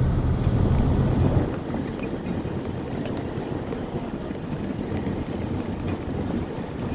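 Road noise inside a moving car's cabin: a low engine and tyre rumble that drops off about a second and a half in, then steady road and wind noise.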